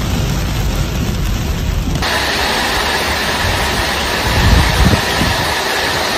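Steady noise of storm wind and heavy rain, with low gusty rumbles. About two seconds in it changes abruptly to a brighter hiss.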